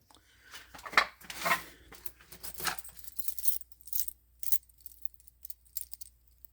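A ring of keys jangling and clinking as it is sorted through to find one key: a run of short metallic jingles, busiest in the first three seconds, then fewer and fainter.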